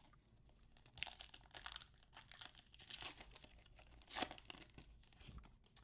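Faint tearing and crinkling of a trading-card pack wrapper being ripped open, in a string of short crackly bursts.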